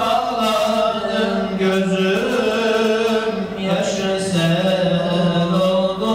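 A man's voice chanting an Islamic religious chant, unaccompanied, holding long notes that slide smoothly from pitch to pitch.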